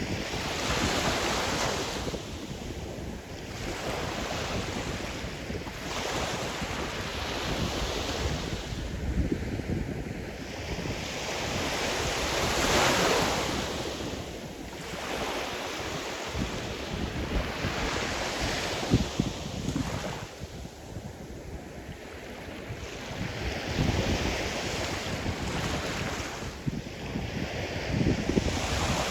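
Sea surf: waves breaking and washing on the shore in repeated swells, each rising and falling over a few seconds, the largest about halfway through, with wind buffeting the microphone.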